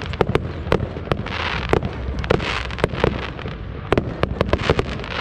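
Fireworks display: an irregular run of sharp bangs and cracks over continuous hissing and crackling, the bangs coming faster near the end.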